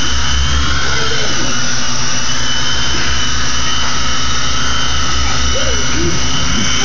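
Toy remote-control helicopter hovering close by: the electric motor's steady high whine over a loud, pulsing low thrum from the spinning rotor blades.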